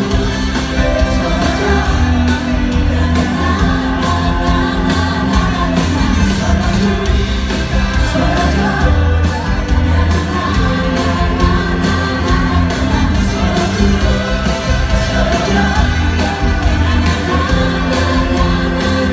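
Live pop band playing with several singers, heard from the audience in a large venue.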